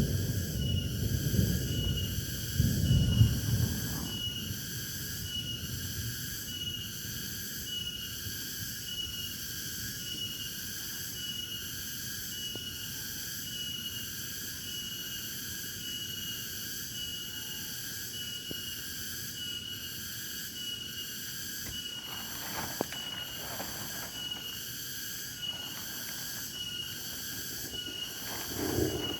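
A chorus of insects keeps up a high-pitched, steady pulsing chirr, about one pulse a second. Low rumbles come in the first few seconds, and a few faint knocks near the end.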